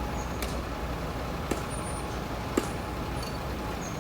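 Bulldozer's diesel engine running with a steady low rumble, with two sharp metallic knocks about a second apart near the middle.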